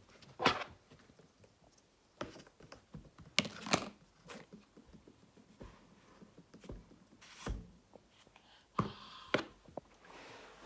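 Scattered light knocks and taps, with soft rustles, from kinetic sand and small plastic moulds being handled in a plastic tray.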